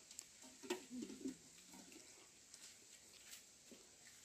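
Faint wet splashing and small clicks from hands groping for fish in shallow muddy water, with a brief faint voice about a second in.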